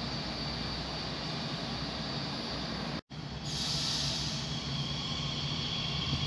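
Electric multiple unit train pulling into the platform with a steady hiss and a high whine of traction motors or brakes. A steady rumble of station background comes before a cut about three seconds in.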